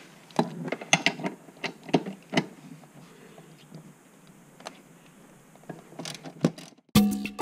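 Hand ratchet with a 5 mm Allen socket clicking in quick runs as it backs out a seat-rail bolt, then a few scattered clicks. Latin music comes in loudly near the end.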